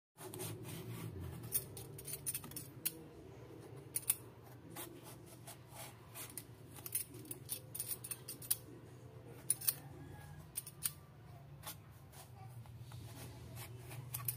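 Peeler blade scraping the skin off a raw eggplant in short, irregular strokes, each a brief sharp scratch. A low steady hum runs underneath.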